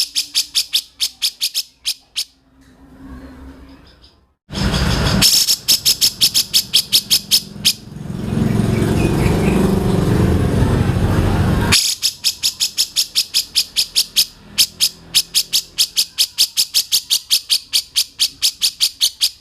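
Bird-call master recording played for song training: long runs of sharp high chips, about five a second. From about five seconds in to about twelve, the chips give way to a rough, noisy stretch that starts and stops abruptly.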